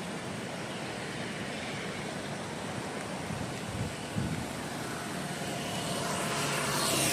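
A motorbike approaching along a wet road, its engine and tyre hiss growing louder over the last two seconds, over a steady rush of outdoor noise.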